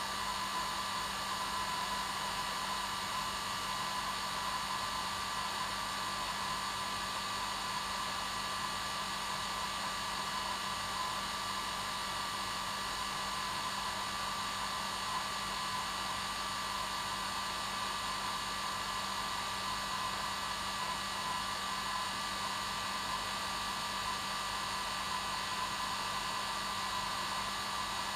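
Hair dryer running continuously on its normal setting: a steady whooshing hiss with a constant hum, never changing.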